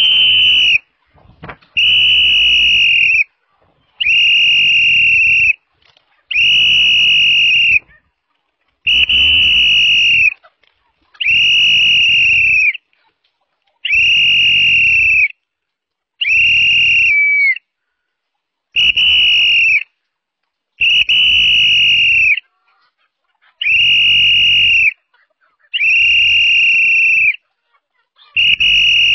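A whistle blown in long, even blasts at one steady high pitch: thirteen blasts, each about a second and a half, with short gaps between.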